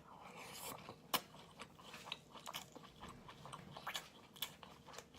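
Faint close-miked chewing of a tiger-skin egg (a boiled egg fried until blistered, then braised): soft mouth sounds and a scatter of small clicks, the sharpest about a second in.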